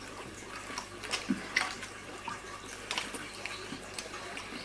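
Quiet eating sounds of fried chicken: scattered small clicks and crunches over a faint background hiss.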